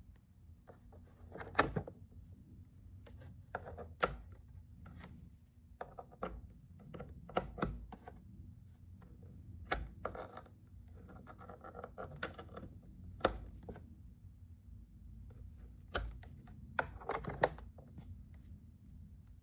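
Irregular clicks and knocks of hard objects being handled in a small room, one every second or two, some in quick clusters, with a short scraping sound about twelve seconds in.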